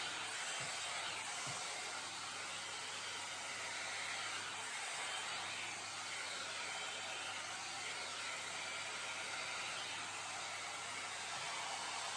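Jomarto hair dryer and volumizer brush blowing hot air in a steady hiss while it is worked through the hair.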